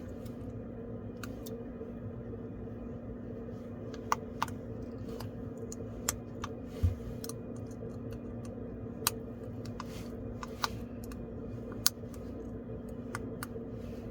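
Scattered sharp clicks and light taps of small hard tools and parts being handled, about nine at irregular intervals. Under them runs a steady low hum.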